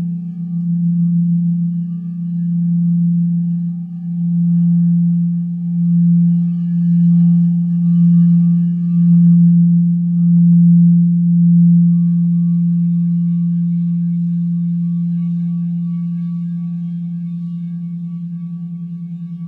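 Frosted quartz crystal singing bowls played with mallets, sounding one deep steady tone that swells and fades in slow pulses about every second and a half, with a higher tone joining in the middle. A couple of faint mallet knocks come about halfway, and over the last several seconds the tone rings on alone, slowly fading.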